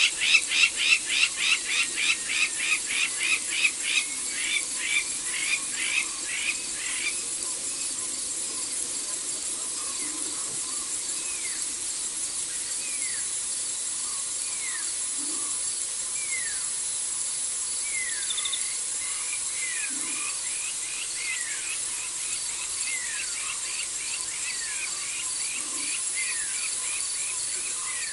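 Wild night calls: a loud rapid series of calls, about three a second, fading away over the first several seconds. Then single downward-sliding whistled notes about once a second, over a steady high insect trill.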